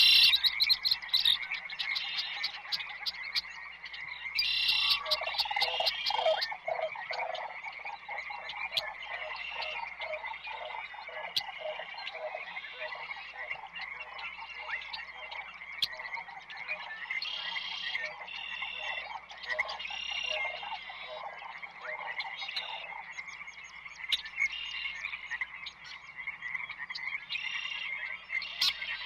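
Nature ambience of animal calls: a steady high trill runs underneath, with many short, rapidly pulsed calls over it and a run of lower pulsed calls about five seconds in.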